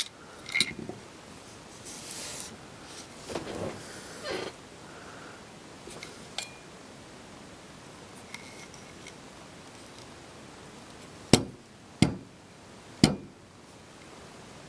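Small clicks, taps and handling rustles from a screwdriver working on a plastic toy's casing, with three sharp clicks spaced under a second apart near the end.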